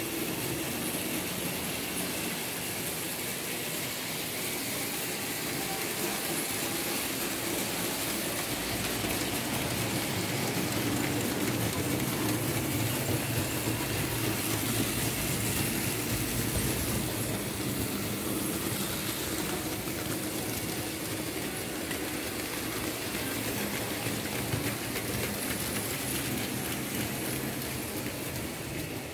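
A Märklin H0 model BR 23 steam locomotive, an early model from 1962, running along the track with open freight wagons: a steady hum from its motor with the rolling and clicking of small wheels on the rails. It grows louder in the middle as the train passes close, then eases off.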